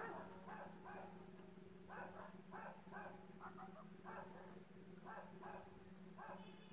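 Faint dog barking, short barks coming every half second or so, irregularly, over a steady low hum.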